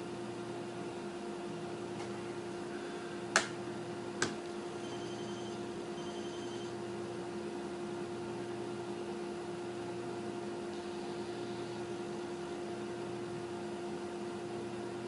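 Steady mechanical hum with a low tone, like a computer fan running. About three seconds in come two sharp clicks, a little under a second apart.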